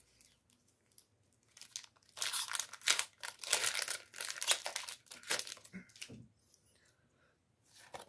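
Foil wrapper of a Pokémon card booster pack being torn open and crinkled: a dense crackling that starts about two seconds in and dies away after about six seconds.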